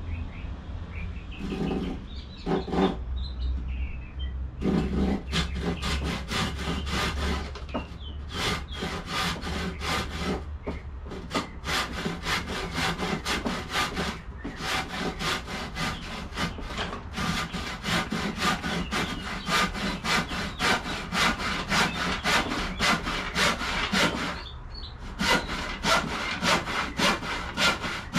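Handsaw cutting through a 2x4 with steady back-and-forth strokes. A few short starting strokes open the cut, then a long even run of strokes, broken by a brief pause near the end before the sawing resumes.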